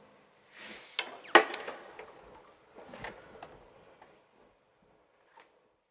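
Handling noise after the music stops: a scattered series of knocks and clicks. The loudest is a single sharp knock about a second and a half in, followed by smaller ones over the next few seconds.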